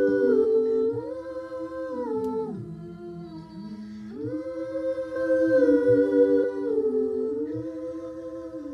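A woman's a cappella humming in several-part harmony, layered voices moving together through slow held chords that change every second or so.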